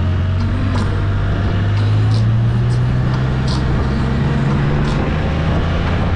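Can-Am Spyder three-wheeled motorcycle's engine running under way, a low steady drone that rises in pitch about two seconds in as it speeds up, then holds.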